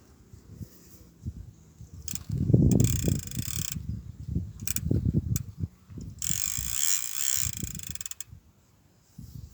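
Centrepin reel's ratchet check buzzing as the spool spins, in two spells of about a second and a half to two seconds each, with low knocks and thuds of handling between them.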